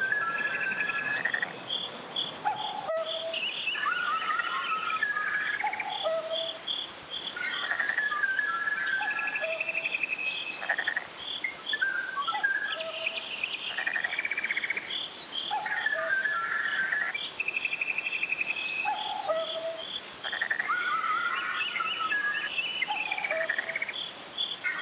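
Birds singing in short warbling phrases that repeat every few seconds, with trains of quick high chirping calls, over a steady faint high hiss.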